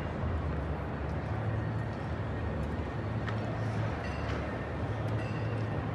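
Steady low hum and rumble of a large indoor hall while electric cars roll slowly past on the concrete floor, with a few faint ticks.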